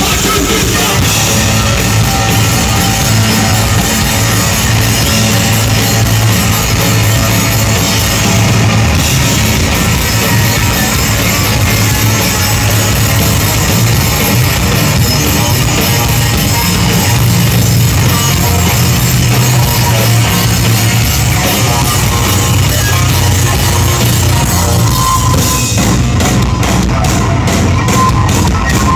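Heavy rock band playing live and loud: distorted electric guitar over a drum kit, recorded from within the crowd.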